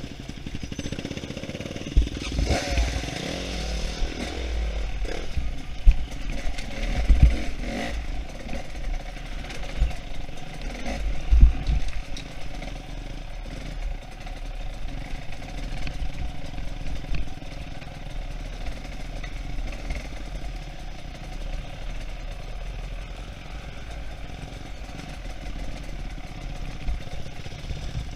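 Enduro dirt bike's engine running at low trail speed with short revs, while the bike clatters over rocks, with several loud knocks in the first twelve seconds.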